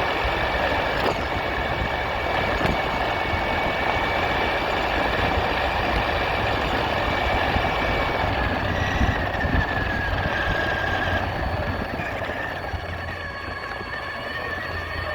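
RC truck running, a steady high whine over a constant hiss. The whine's pitch shifts slightly about nine seconds in, and the sound eases a little after that.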